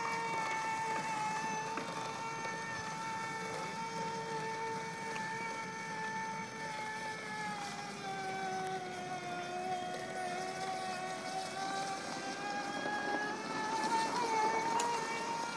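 Electric drive motor of a motorised beach wagon whining at a steady pitch. The pitch sags for several seconds in the middle, as the motor slows, and climbs back near the end.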